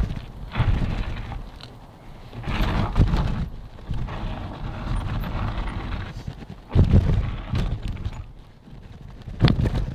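Mountain bike jolting over a rough gravel trail: irregular knocks and rattles, with uneven gusts of wind rumbling on the microphone. The strongest surges come at the start, about three seconds in, about seven seconds in and near the end.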